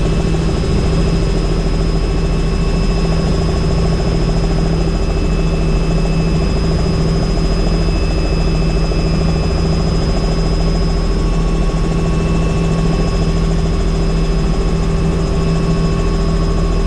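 Helicopter in flight: steady rotor beat and turbine whine over rushing air noise, holding level and pitch throughout.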